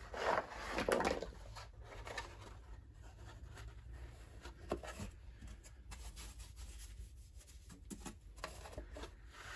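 Faint handling sounds: a rustle in the first second, then a few soft taps and rubs as an empty moulded tray and a whiteboard are moved about by hand on carpet, over a low steady room hum.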